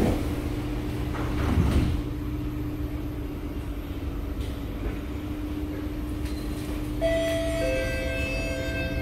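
Inside an SMRT C751B metro car: a steady electrical hum, with a thump of the doors shutting under two seconds in. About seven seconds in, several steady whining tones begin.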